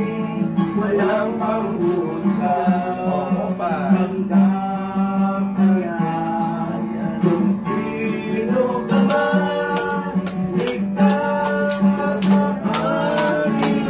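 A song: voices singing with acoustic guitar accompaniment. In the last few seconds hand claps join in time, about three a second.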